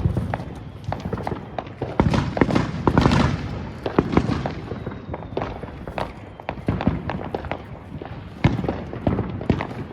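Star Chaser fountain firework burning: a steady spraying hiss with many sharp pops and crackles, loudest from about two to three and a half seconds in.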